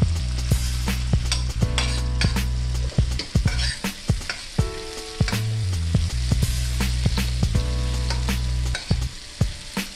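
Butter sizzling and spitting in a stainless steel pan while a metal spoon bastes a ribeye, with frequent clinks and scrapes of the spoon against the pan. Low background music with bass notes plays underneath and drops out briefly twice.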